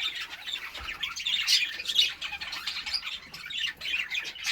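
Budgerigars chattering: a continuous run of short, high calls from several birds.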